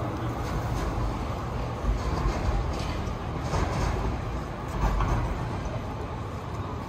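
Tram and street traffic noise: a steady low rumble with louder clattering bumps about two and five seconds in.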